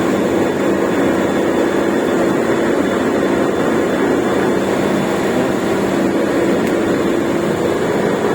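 Cold-store refrigeration machinery running: a loud, steady drone with an even low hum and no breaks.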